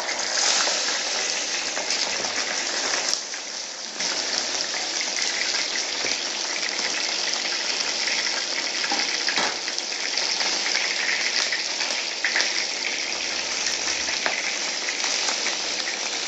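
A whole white pomfret deep-frying in hot oil in a pan: a steady, dense sizzle with scattered pops and crackles. It dips briefly about three seconds in, then carries on.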